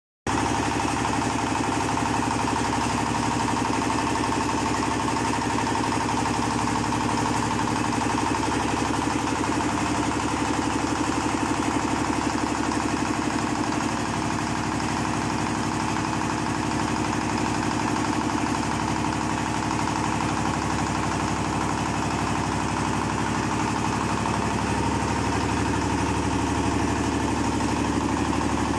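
Mustard oil expeller machine running steadily: a continuous machine drone with a fast, even pulse, the motor and screw press working at a constant pace.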